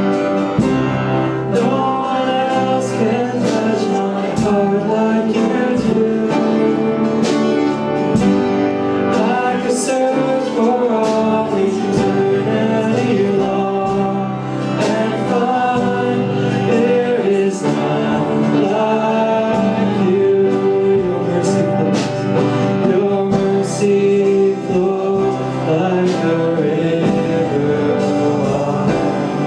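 Live worship music: a band with guitar and a singing voice, playing steadily, with a regular beat.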